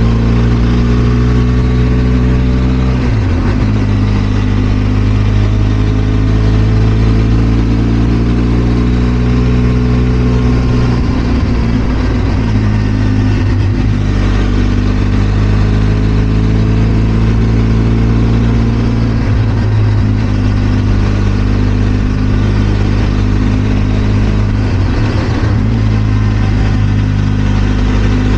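Benelli TRK 502 X's parallel-twin engine running on the move, its note drifting in pitch and breaking off and resetting several times as the throttle and gears change, over a steady rush of wind.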